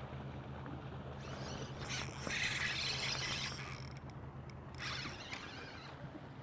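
Spinning fishing reel being cranked in spells, loudest from about two to three and a half seconds in, over a steady low hum.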